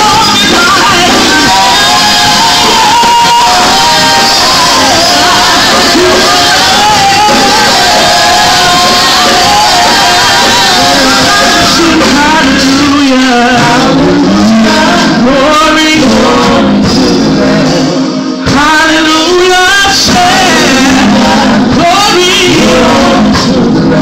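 A woman singing a gospel song, loud into a handheld microphone, over a live band with drum kit and keyboard. There is a brief break in the sound about three-quarters of the way through.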